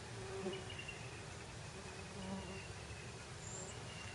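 Bumblebee buzzing faintly on and off, a low hum that swells and fades as it works a flower.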